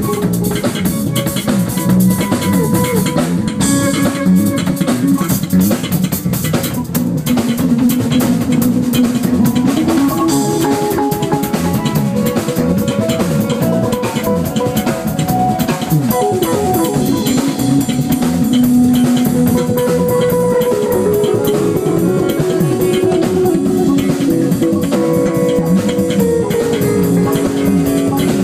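Live band playing loud and steady, an electric guitar over bass guitar and drum kit.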